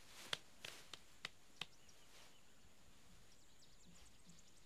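Near silence: faint outdoor ambience with about five soft clicks in the first second and a half, and a brief patch of faint high chirping about three and a half seconds in.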